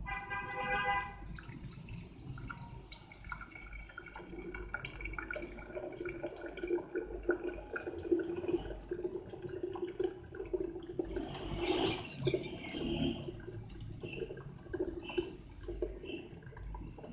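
Hot boiled milk mixture pouring in a thin stream from a steel pot through a stainless-steel mesh strainer into a glass jug, a steady running and splashing sound. A short ringing tone sounds right at the start.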